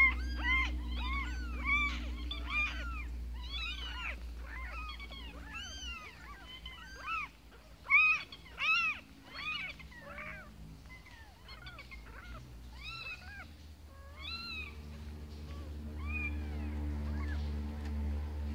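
Newborn kittens mewing in short high-pitched cries, two or three a second, the loudest about eight seconds in; the cries thin out over the last few seconds.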